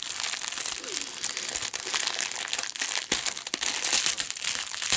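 Clear plastic wrapping crinkling continuously as hands squeeze and turn a wrapped bundle of bagged diamond-painting drills, with many small crackles.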